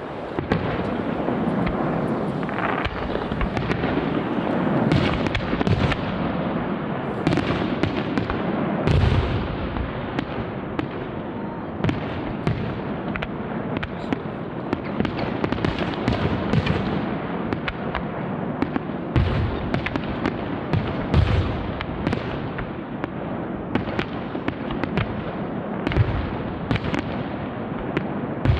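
Aerial fireworks display: a dense, continuous crackle of bursting stars and firecracker-like reports, punctuated by several deep booms of shells bursting.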